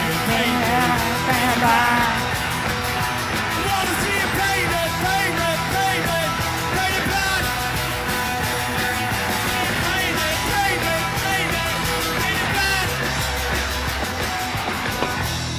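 Live rock band playing, with a male singing lead and guitars and bass.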